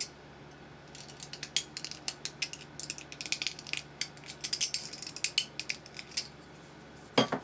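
Small 3D-printed plastic parts clicking and scraping in rapid, irregular ticks as a pin is worked into a tight-fitting robot arm, with one sharper click near the end.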